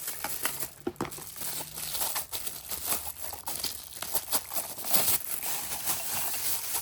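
Plastic packaging crinkling and rustling in irregular bursts as the vacuum's parts are handled and unwrapped.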